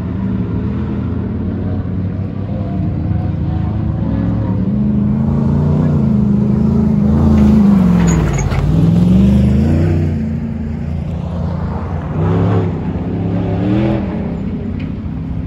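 First-generation Ford Raptor pickup's V8 engine driving past close by. The engine note drops as the truck slows into the turn about eight seconds in, then climbs again as it accelerates away, with a couple of shorter revs near the end.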